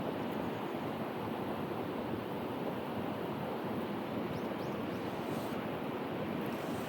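Mountain stream water rushing steadily over rocks, an even wash of noise with no let-up.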